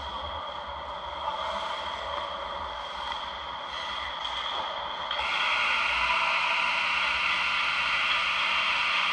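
Ice-rink ambience: hockey skates scraping and gliding on the ice over a steady arena hum. About five seconds in, a louder, steady rushing noise sets in.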